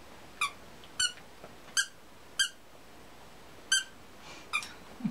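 Squeaky dog toy squeaking six times in short, high squeals as a puppy bites down on it. The squeaks come at irregular intervals, with a longer gap about midway.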